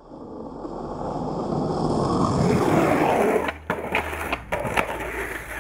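Skateboard wheels rolling over concrete, growing louder for about three seconds as the board rides up a steep concrete bank. The rolling drops away suddenly, followed by several sharp clacks of the board.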